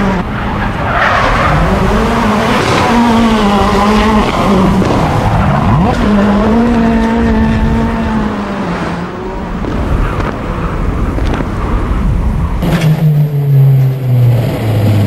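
Rallycross car's engine revving up and down over and over as the car drifts, with tyre noise underneath. Near the end the engine note turns lower and fuller, as heard from inside the car, and its pitch falls.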